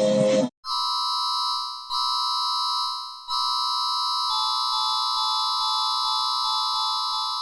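Emergency-alert attention tone: a steady chord of high electronic tones sounding in three stretches, the first two fading out after about a second, the last held for about four seconds with a lower tone added partway through. Music ends just before it starts.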